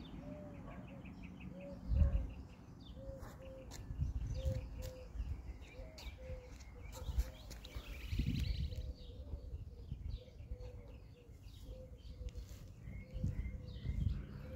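Wild birds calling outdoors: a steady run of short, evenly repeated notes at about two a second, with quick high twittering trills over it. Occasional low rumbles come through, the loudest about two seconds in.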